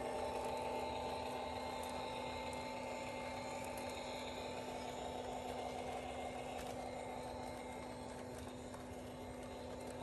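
O scale model freight train rolling past on three-rail track: a steady hum with a few faint clicks of wheels over the rails, slowly fading as the train moves away.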